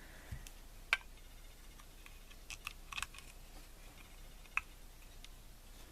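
A few light, scattered clicks and taps of small metal lock parts and tools being handled as a picked pin-tumbler lock is opened up for disassembly.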